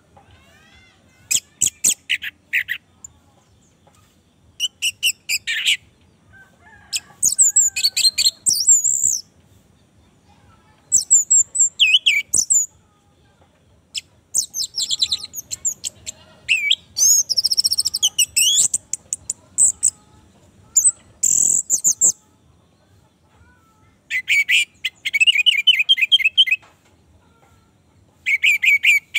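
Orange-headed thrush singing: a string of short, fast phrases of varied whistles, trills and chirps, each a second or two long, with brief pauses between them.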